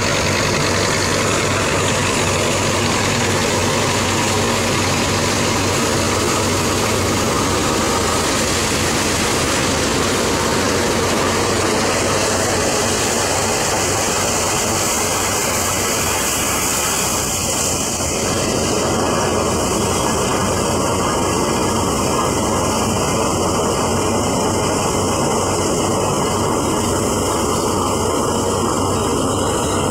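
Belarus 510 tractor's diesel engine running steadily under load, driving a belt-powered wheat thresher, mixed with the thresher's whirring drum and blower and the rush of chaff being blown out.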